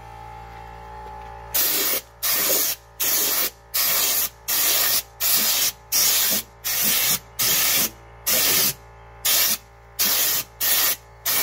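Raptor bed-liner applicator gun on a compressed-air line, spraying textured liner in a quick run of short hissing bursts, more than one a second, starting about a second and a half in.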